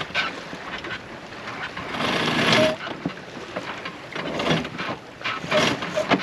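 Wind rushing over a sailboat under sail and buffeting the microphone, in uneven gusts with the strongest about two seconds in. Scattered short clicks and knocks and a few brief squeaks come from the boat's gear.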